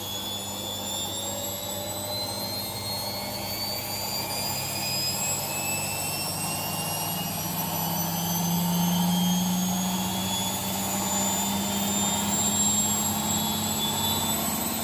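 Siemens washing machine drum spinning up at high speed during a drain-and-spin, its motor whine rising steadily in pitch toward about 1,380 rpm. A low hum swells about halfway through. The load is a bit unbalanced, in the owner's view.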